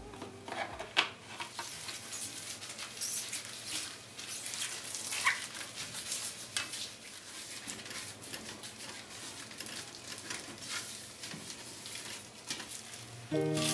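Rustling and scraping of a gloved hand wiping the inside of a storage pot with paper towel to disinfect it with alcohol, with scattered light clicks and one sharper knock about a second in as the lid and dishes are handled.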